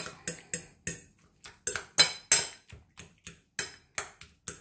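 Metal fork clinking and scraping against a china plate while mashing and stirring grilled aubergine filling: an uneven run of sharp clinks, about three or four a second.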